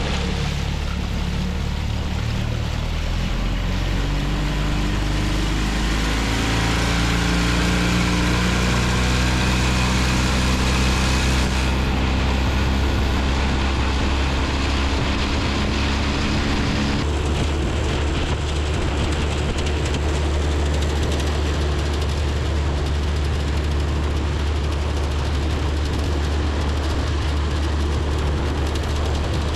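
Boat motor running under way. Its pitch climbs over the first fifteen seconds or so as it speeds up, then holds steady, over a constant rush of wind and water.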